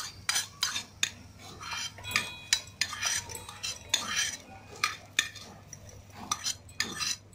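A metal spoon scraping and clinking against a frying pan as roasted coconut pieces, chana dal and peanuts are pushed out and drop into a stainless-steel mixer-grinder jar. It makes an irregular run of metallic clinks and clatters, some ringing briefly.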